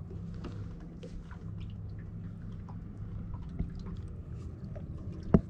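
Steady low hum on a boat at rest, with small water drips and clicks throughout and one sharp knock about five seconds in.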